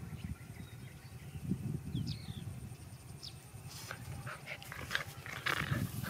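Two young dogs play-fighting, with low growls and snuffling. Scuffling grows busier from a little after halfway.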